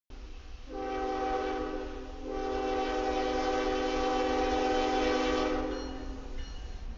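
A GE ES44DC diesel locomotive's air horn sounds two long blasts as the freight train approaches, a steady multi-note chord. There is a brief break about two seconds in, and the horn fades out near the end.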